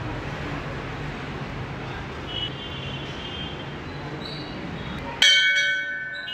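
A brass temple bell struck once about five seconds in, ringing on with several clear tones that fade, after a steady background hiss.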